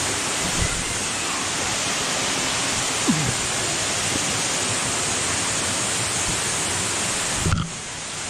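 Steady rushing of a waterfall pouring into a rock pool, with a soft low knock about half a second in. Near the end the rush drops a little.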